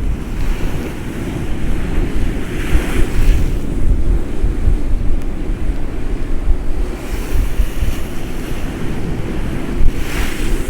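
Storm waves breaking and splashing against a sea wall under gale-force wind, which buffets the microphone with a heavy rumble. Louder hissing surges of water come about three seconds in, around seven to eight seconds, and near the end.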